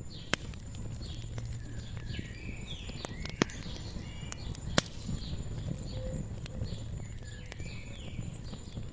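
Wood fire crackling, with three sharp pops standing out about a third of a second in, about three and a half seconds in and near the five-second mark. Songbirds chirp in short, repeated phrases throughout.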